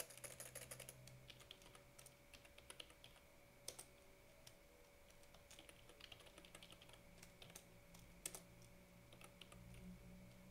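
Faint computer keyboard typing: scattered keystrokes, with a quick run of them in the first second, over a low steady hum.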